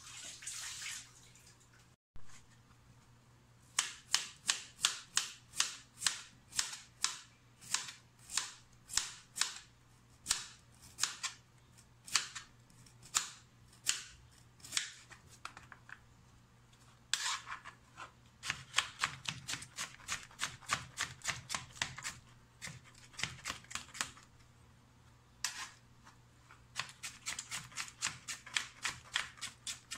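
Kitchen knife slicing carrots on a plastic cutting board: a run of sharp knife strikes on the board, about three a second, quicker after short pauses later on.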